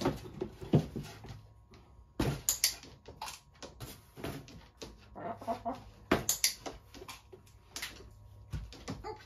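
Irregular sharp taps and clicks, some in quick pairs, around a chicken-training board with push buttons as an Orpington hen is handled on it, over a faint steady hum.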